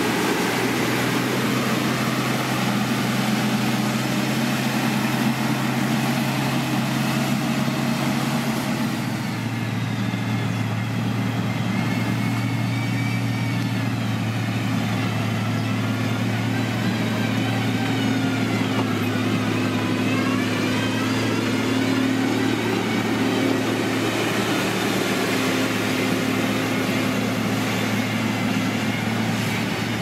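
Diesel engine of an SDLG motor grader running steadily under work; its note shifts to a slightly lower, fuller hum about nine seconds in, and a fainter whine rises and falls over it through the middle.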